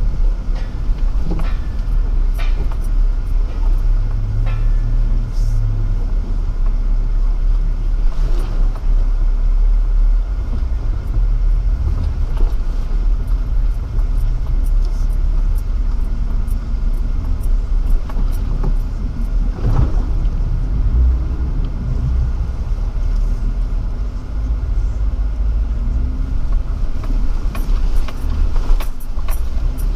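Jeep engine running at low revs with a steady low rumble as it crawls through a water-filled off-road obstacle, with scattered short knocks and rattles as the body jolts through holes.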